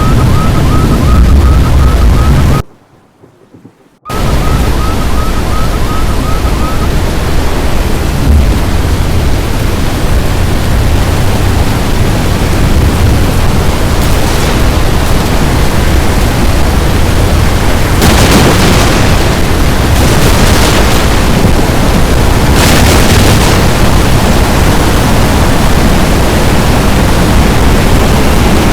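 Loud, steady storm noise of wind and rain buffeting the microphone, with louder hissing surges several times in the second half. The sound cuts out for about a second and a half near the start, and a faint, fast-repeating high beep runs under it during the first several seconds.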